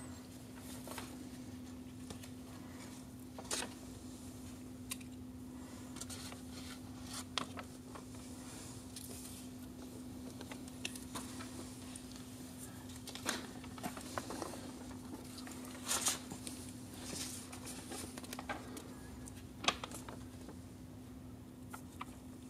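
Sheets of paper handled and swapped now and then: soft rustles and light taps scattered a few seconds apart, over a steady low hum.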